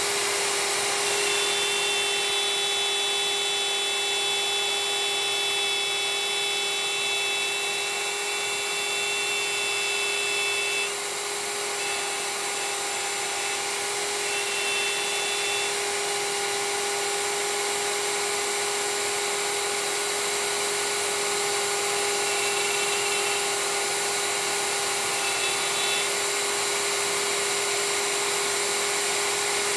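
Plunge router running with its bit cutting a bow-tie inlay recess in wood: a steady whine whose tone shifts with the load, with higher tones joining over the first ten seconds or so and coming back briefly later, as the bit removes more material.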